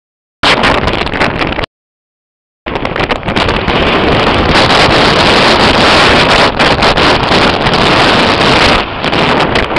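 Strong wind buffeting the camera microphone in a loud, rushing roar. The sound drops out completely twice in the first three seconds.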